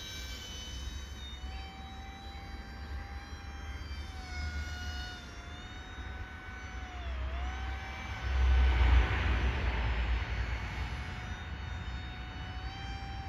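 Radio-controlled paramotor's propeller motor whining in flight, a steady high hum whose pitch dips sharply about seven seconds in and comes back up. Wind buffets the microphone throughout, hardest a little past the middle.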